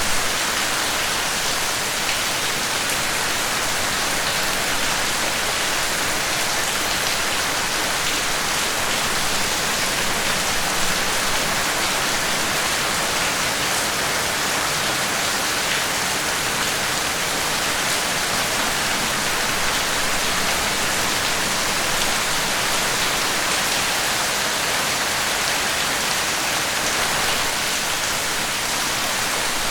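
Steady, heavy rain falling, an even hiss of many drops with no break or change.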